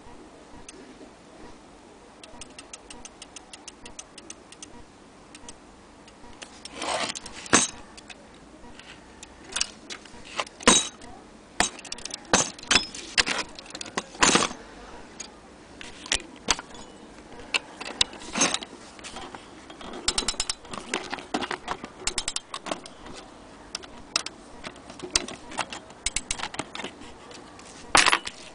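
Brass key-wound pendulum clock movement ticking steadily. From about seven seconds in, it gives way to loud, irregular clicks, clinks and rattles of the metal movement and clock parts being handled.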